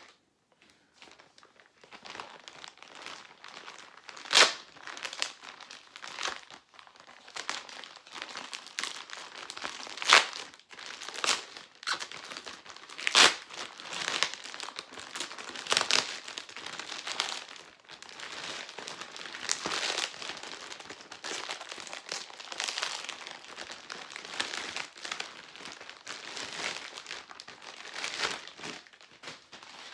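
Plastic packaging, a red poly mailer and a clear plastic bag, crinkling and rustling as it is pulled open and handled, with sharp louder crackles now and then.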